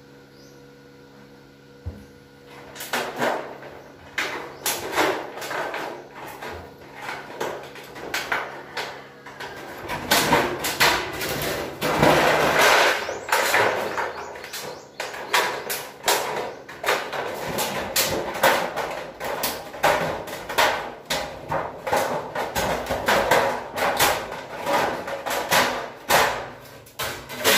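Hand tin snips cutting across a corrugated metal roofing sheet: a run of short, sharp metallic snips, sparse at first and much denser and louder from about ten seconds in.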